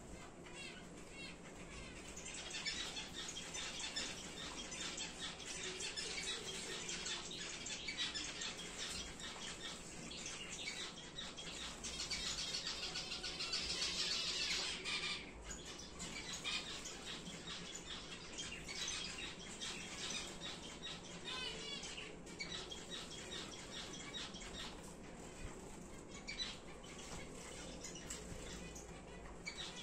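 Star finches chirping and calling, a dense stream of short high calls with a few warbling trills, busiest about twelve to fifteen seconds in.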